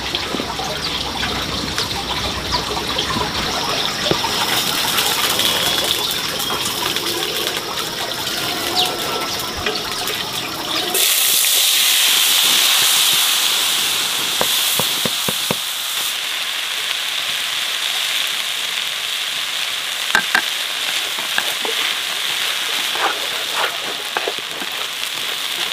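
Water sloshing and gushing. About eleven seconds in it cuts abruptly to a steady sizzle with scattered crackles: food frying in a pan.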